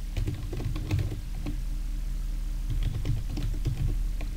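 Computer keyboard being typed on in two quick runs of keystrokes, over a steady low background hum.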